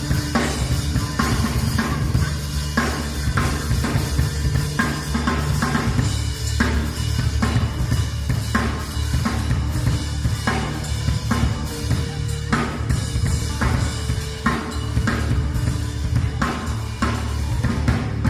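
Live band playing dance music, led by a drum kit keeping a steady beat on kick and snare, with low bass notes underneath and no singing.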